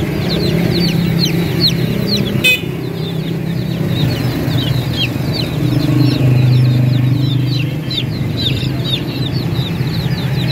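A flock of domestic chicken chicks peeping continuously, many quick high chirps that fall in pitch and overlap, over a steady low hum.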